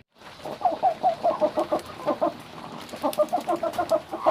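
A broody hen clucking in two quick runs of short, repeated notes, about six a second, with a brief break in the middle.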